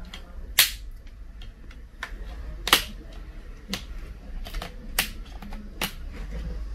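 Plastic snap clips of an HP 15 laptop's display lid popping loose one after another as a thin opening tool is worked along the seam, a series of sharp clicks, four of them loud, with fainter ticks between.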